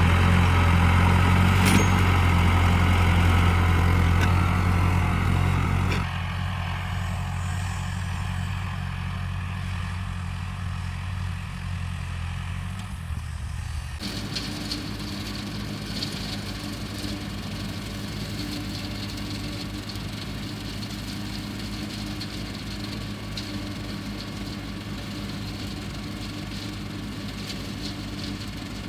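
Tractor engine running steadily. It is loud for the first six seconds, drops in level, and changes in tone about fourteen seconds in.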